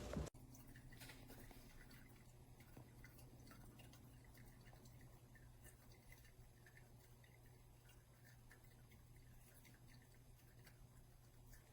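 Near silence: faint, irregular drips, typical of coffee dripping from a pour-over's double stainless-steel filter into the carafe, over a low steady hum.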